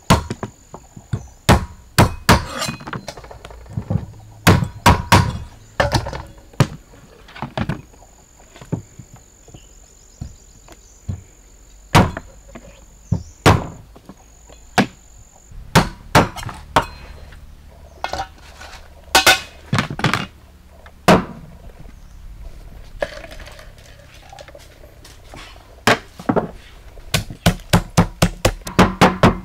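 Heavy cleaver chopping a raw duck on a wooden chopping block: loud, irregular single strikes. In the last few seconds, a wooden pestle pounding in a clay mortar, a quick even run of about three blows a second.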